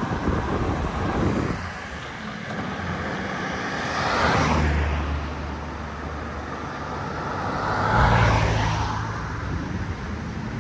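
Audi e-tron GT RS electric sports car being driven hard, with no engine note, only tyre noise and a low electric hum. It swells twice, about four and eight seconds in, as the car accelerates and then slides sideways across the road.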